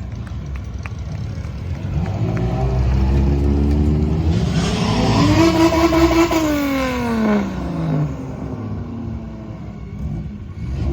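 Hill-climb race car passing at high revs: its engine note rises as it approaches, is loudest about five to seven seconds in, then drops in pitch as it goes away.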